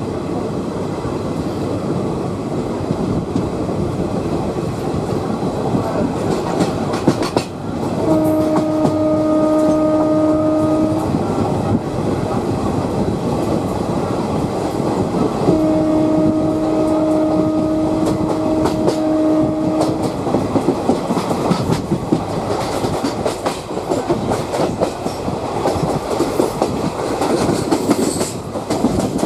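Passenger train hauled by a WAG5 electric locomotive accelerating away, its wheels clattering steadily over the rail joints. A train horn sounds two long single-pitched blasts, the second longer than the first.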